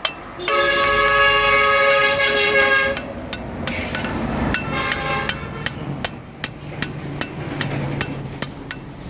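A train horn sounds one long, steady blast, then trails off in a fainter second tone. About halfway through, hammer blows on metal start again, about three a second.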